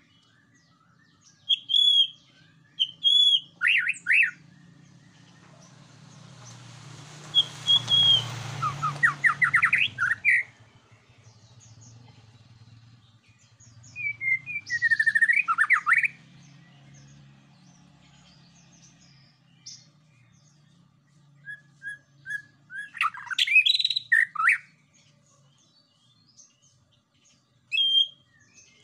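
White-rumped shama (murai batu) singing in bursts of loud, varied whistled phrases with quick pitch sweeps, separated by pauses of a few seconds. A steady low hum runs beneath, and a rushing noise swells and fades about a third of the way in.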